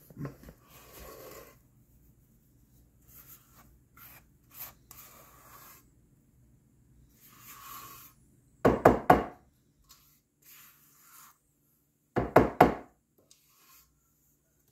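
Silicone spatula scraping thick blondie batter out of a stainless steel mixing bowl into a metal baking pan, in soft scrapes. Two loud bursts of quick knocks stand out, about nine and twelve seconds in.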